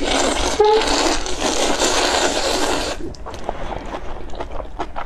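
Long, loud slurp of spicy fire noodles (Buldak-style instant noodles) being sucked into the mouth, lasting about three seconds with a brief squeak near the start. It is followed by a run of short, wet mouth clicks and smaller slurps.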